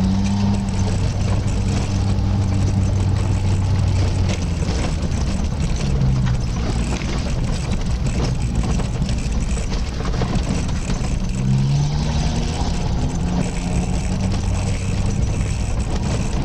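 A vehicle driving slowly on a gravel road: the engine runs steadily at low revs, its pitch rising briefly about six seconds in and again near eleven seconds, under a constant rough noise of tyres on loose gravel.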